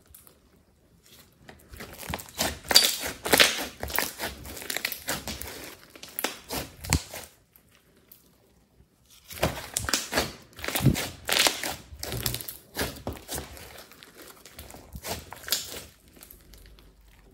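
Thick red slime being stretched and pulled apart by hand, giving dense crackling and sticky popping. The crackles come in two stretches, with a pause of about two seconds in the middle.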